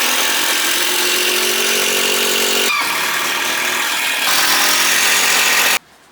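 Electric power tool running loud and steady, with a steady motor whine over a noisy hiss. It breaks off briefly about two and a half seconds in, then runs again and stops abruptly near the end.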